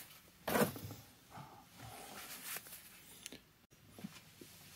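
A brief rustle from wiping up excess sealant around a newly seated jet pump wear ring. Faint handling noises follow, with a small click a little past three seconds in.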